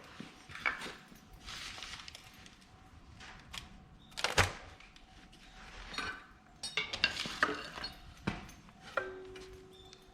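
Metal tools and parts clinking and knocking as they are handled: a string of separate clicks and taps, the loudest about four and a half seconds in.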